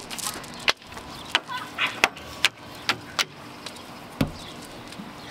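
Children's feet and hands knocking on the perforated metal steps and deck of a playground climbing structure, a string of sharp knocks at irregular intervals for about four seconds.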